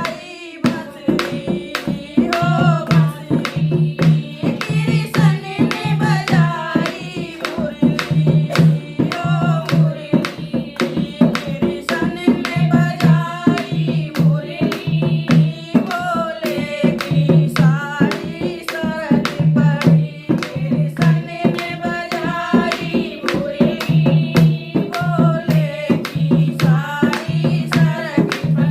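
Hindi devotional song (bhajan): a voice singing over drums keeping a steady, fast beat.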